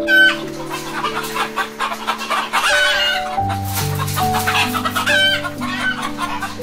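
Poultry calling in a busy overlapping flock, with short falling calls at the start and again about five seconds in, over background music with slow, sustained low notes.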